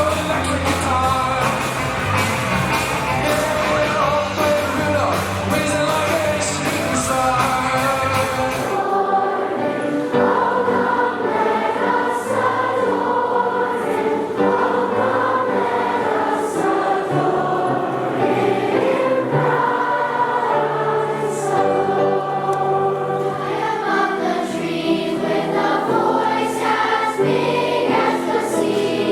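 A choir singing with accompaniment. About nine seconds in the deep bass and sharp beats drop out abruptly, leaving mostly the choir's voices.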